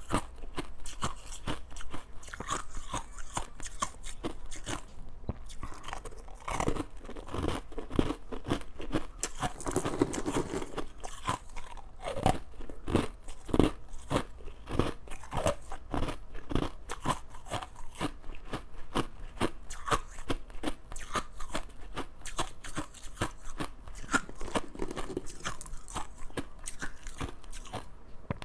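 Crushed ice being bitten and chewed close to the microphone: a continuous run of sharp, irregular crunches.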